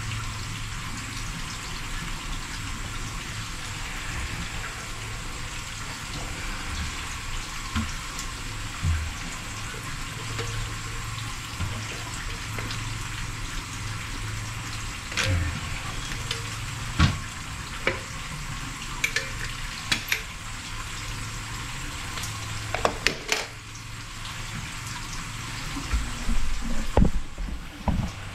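A steady hiss with a low hum throughout, and a handful of sharp clicks and knocks in the second half as a caulk tube is handled and caulk is worked around a toilet base on a tiled floor.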